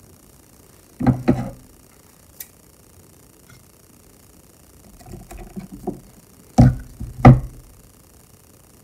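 Knocks and thumps of small objects being handled and set down on a hard work surface: a double knock about a second in, softer clattering later on, and a louder double thump near the end.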